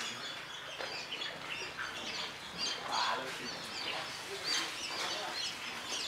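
Many small birds chirping, short high chirps overlapping one another without pause.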